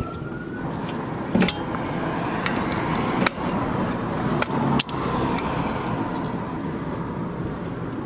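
Rear brake caliper being pried off with a screwdriver and lifted off the rotor: a few sharp metal clinks and knocks over steady traffic noise, with a distant siren wailing and rising as it begins.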